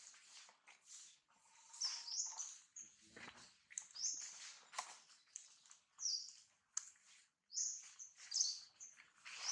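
Short, high-pitched chirping calls repeating about once a second, with rustling of dry leaves underfoot.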